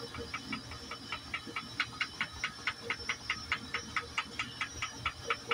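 GE oven's electronic control panel ticking rapidly and evenly, about five ticks a second, as a key is held to scroll the cooking time.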